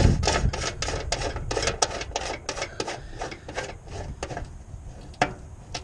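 Socket ratchet clicking rapidly, about five clicks a second, as a bolt is run in on the toolbox mount; the clicking thins out and stops after about four and a half seconds. A low thump at the very start and a single sharp knock near the end.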